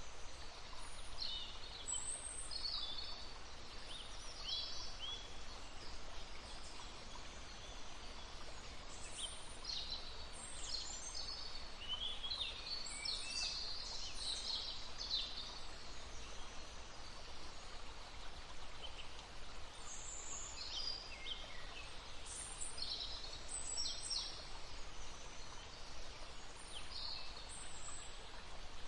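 Several small songbirds singing in short high chirps and quick trills, coming in clusters, over the steady sound of a flowing stream.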